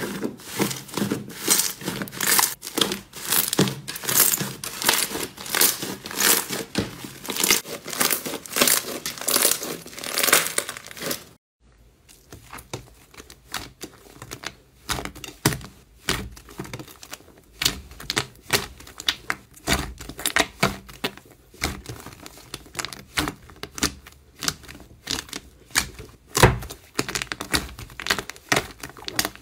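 Hands squeezing and pressing a large mound of fluffy blue slime, giving dense, continuous crackling and popping as air pockets burst. After a short break about eleven seconds in, a soft orange slime is stretched and pressed in a glass bowl, giving quieter, sparser pops and clicks.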